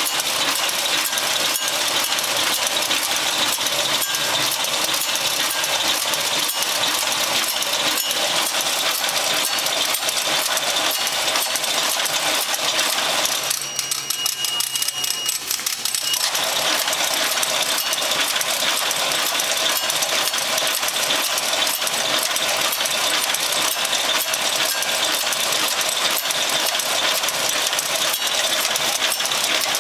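Automatic incense-stick making machine running with a fast, steady mechanical clatter. The clatter dips briefly for a couple of seconds about halfway through, then picks up again.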